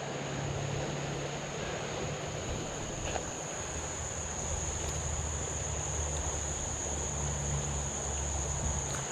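Insects droning with one steady, high-pitched, unbroken note over the even rush of flowing creek water.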